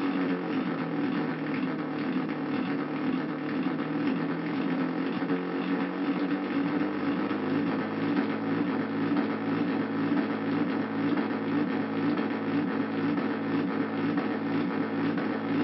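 Handmade Arduino drone synthesizer playing a dense, steady drone of many stacked tones. About seven seconds in, its low notes change into an even, pulsing pattern.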